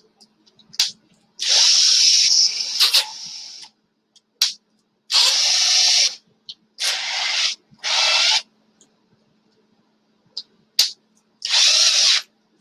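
A small hand-held power tool run in five short bursts of about one to two seconds each, with a few clicks between them.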